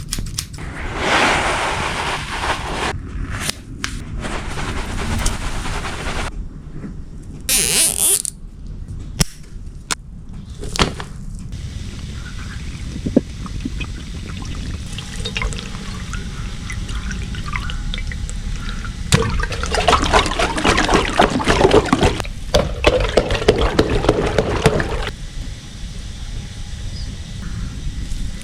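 Water pouring and splashing in several separate spells, the longest near the end, with a few sharp clicks between them.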